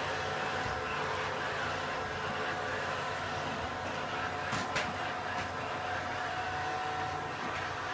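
Robot vacuum cleaner running with a steady motor hum and hiss, with two short clicks a little past halfway.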